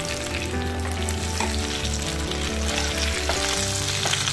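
Hot coconut oil sizzling steadily around fish pieces being shallow-fried in a pan. There are a few light clicks of a metal spatula against the pan as the pieces are lifted out.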